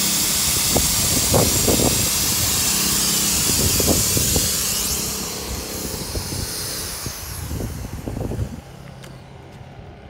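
Air hissing loudly out of the pressure relief valve of an inflatable deck that has reached full pressure while the inflation pump is still running; the hiss fades from about halfway and stops abruptly near the end.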